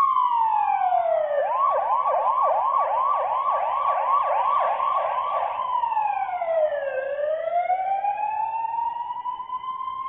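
Police siren changing pattern: a slow wail falls in pitch, breaks into a fast yelp of about three quick rising sweeps a second for roughly four seconds, then drops again and climbs slowly back into the wail.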